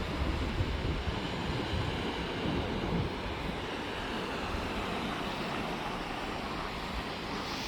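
Ocean surf washing on the beach, a steady rushing noise, with wind buffeting the microphone, heavier in the first few seconds.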